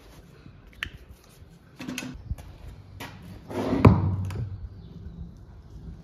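Steel horseshoe worked against a running belt sander drum: short grinding passes and metallic knocks as the shoe is pressed on and lifted off. The loudest is a dull knock with a scrape about four seconds in.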